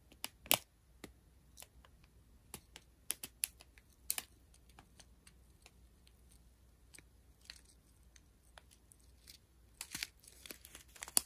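Plastic strip of sealed diamond-painting drill bags crinkling as it is handled, in scattered sharp crackles and clicks, busier near the end.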